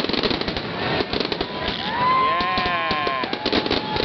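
Fireworks crackling and popping in rapid, dense succession. About halfway through, a held whistling tone sounds over the crackle for about a second and a half, followed by a fainter, lower tone.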